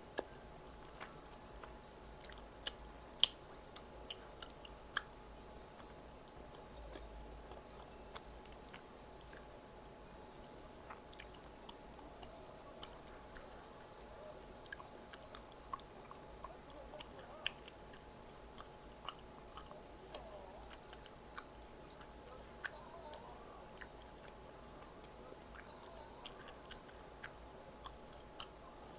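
A person chewing food close to the microphone, with many scattered sharp mouth clicks and small crunches. The loudest click comes about three seconds in.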